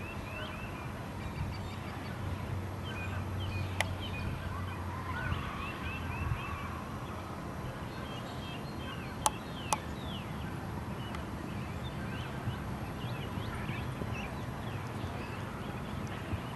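Birds chirping and calling: many short, quick calls throughout over a low steady background rumble, with a few sharp clicks, one about four seconds in and two close together about nine and a half seconds in.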